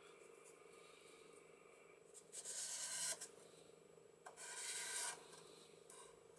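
Chisel tip of a Promarker marker rubbing along the edges of a printed-paper-covered MDF model building, laying in shading. Two scratchy strokes of about a second each, the first about two and a half seconds in and the second near five seconds, over a faint steady hum.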